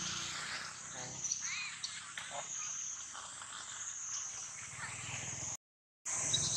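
Steady high-pitched chorus of evening insects, with a few short chirps over it. The sound cuts out completely for about half a second near the end.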